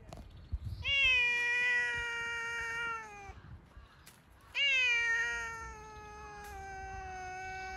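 Cat meowing: two long, drawn-out meows, each starting slightly higher and sliding slowly down in pitch. The second meow is the longer.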